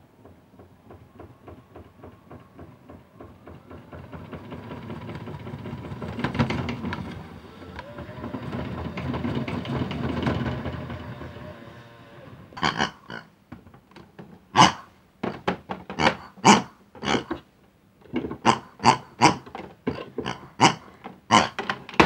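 Toy Hotpoint washing machine running, its drum turning with a fast ticking and a whir that swells and fades twice. After about twelve seconds it gives way to a string of short oinking grunts from the pig toys, about two a second.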